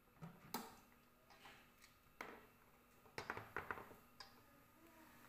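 A few faint clicks and light knocks from a Noxxa electric pressure cooker's lid being twisted to unlock and lifted off, once all the steam has been let out.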